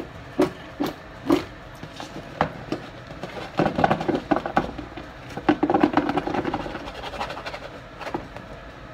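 Rinsed green grapes tumbling out of a plastic colander into a plastic tub: hard plastic knocks, then two stretches of grapes rattling and rolling against the plastic, about four and six seconds in.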